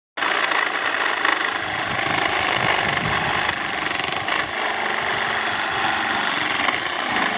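Ryobi 18V cordless reciprocating saw running steadily, its blade cutting through firewood.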